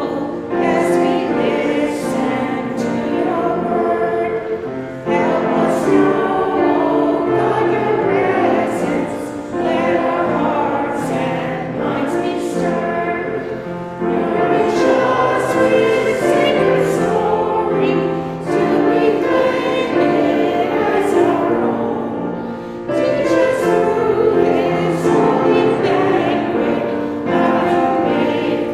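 Congregation singing a hymn with piano accompaniment, line by line, with brief pauses between phrases every few seconds.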